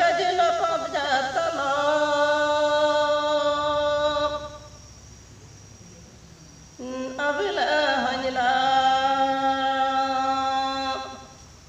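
A woman singing a traditional Galo song unaccompanied, in two long phrases. Each phrase closes on a held note, with a pause of about two seconds between them.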